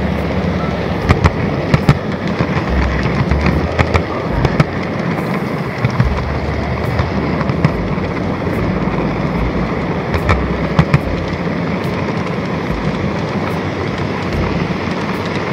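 N-gauge model train running on the layout's track, heard up close from a camera car on the rails: a steady rolling rattle of small wheels on rail with irregular sharp clicks and crackles, a few of them much louder.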